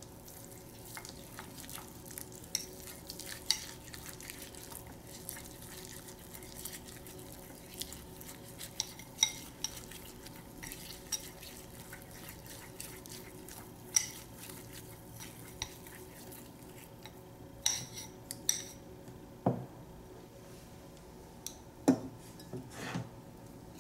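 Chopsticks stirring a thick sesame and peanut paste in a ceramic bowl, with quick irregular clicks as they tap and scrape the bowl's sides. A few louder knocks come in the second half.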